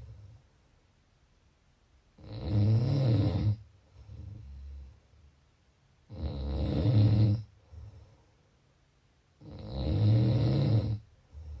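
A person snoring in a slow, regular rhythm: three long, low snores about three and a half seconds apart, each lasting over a second, with a softer breath between them.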